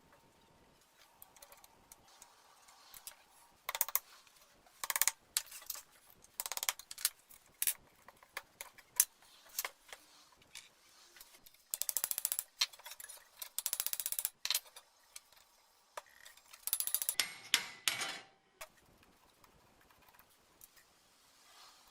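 Hand tools working on a 1920s Marelli table fan: scattered metal clicks and taps, with a few bursts of fast ratchet clicking, each a second or two long.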